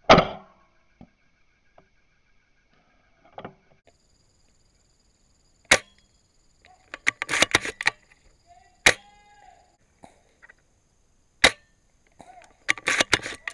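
Airsoft guns firing: one sharp shot at the start, then single sharp cracks spaced a few seconds apart and two quick runs of several shots in a row, about halfway through and near the end.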